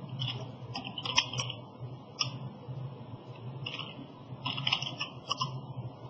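Computer keyboard typing: short, irregular runs of key clicks over a steady low hum.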